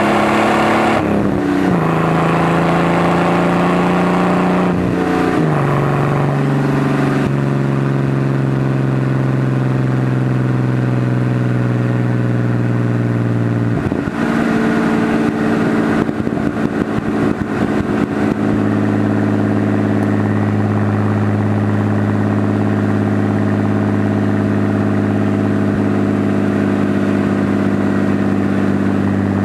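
Datsun 280ZX's straight-six engine and exhaust running as the car drives at 25-35 mph, heard from a microphone on the outside of the car. The engine note steps down in pitch twice in the first few seconds, breaks up briefly about halfway, then settles into a steady cruise.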